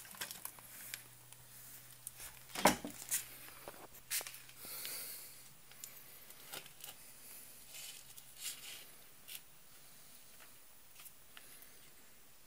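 Irregular clicks and knocks, the loudest a little under three seconds in, from a defective 3660 3800KV brushless motor stuttering and twitching instead of spinning up under a GoolRC 60A ESC.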